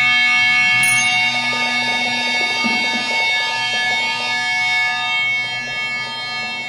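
Guitar strings sustained by an EBow, several steady notes held together as a drone, with a flickering texture joining about a second and a half in.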